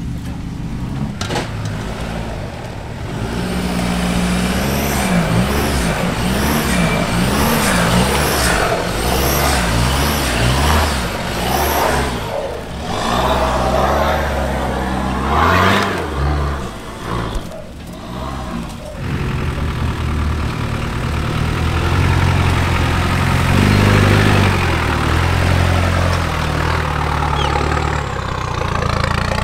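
Off-road 4x4 engine working under load, its pitch rising and falling repeatedly as the throttle is blipped. It then settles to a steadier, fairly constant note for the last ten seconds or so.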